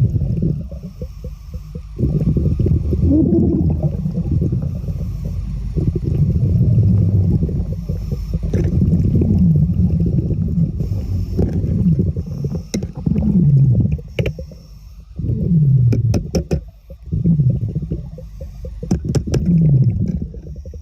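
Low, rumbling gurgle of water heard underwater, with repeated short falling glides and scattered sharp clicks.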